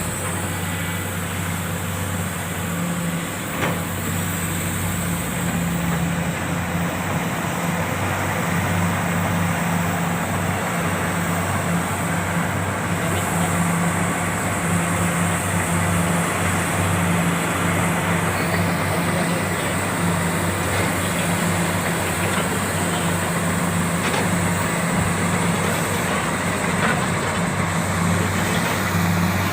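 Komatsu PC400 hydraulic excavator's diesel engine running steadily with a low engine hum under broad mechanical noise, as it works loading a dump truck.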